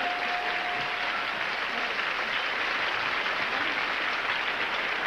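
Studio audience applauding steadily after a correct password guess.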